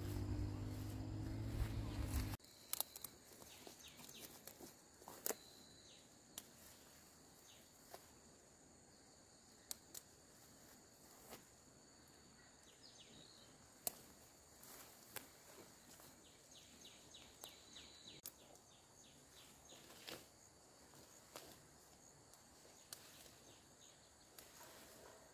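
Quiet outdoor countryside ambience: a steady high insect drone, a run of small chirps, and sharp clicks and rustles from plants every second or two. For about the first two seconds a louder, steady low hum sits under it, and it stops abruptly.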